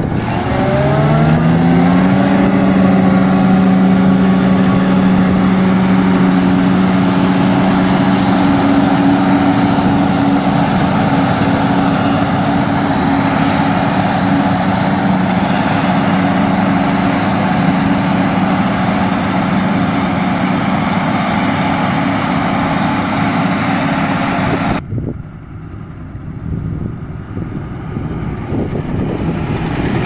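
John Deere 7750i forage harvester running under load while chopping maize: a loud, steady machine hum whose pitch rises over the first two seconds, then holds level. About 25 s in it cuts to a quieter, rougher engine sound.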